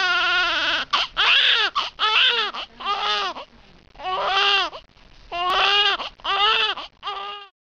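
A baby crying: a string of about eight cries, each rising then falling in pitch with short breaths between, breaking off near the end.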